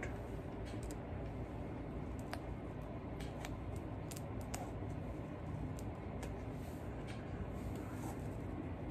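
Faint, scattered small clicks and ticks of fingers handling a small model locomotive and its test-lead wires, over a steady low background hum.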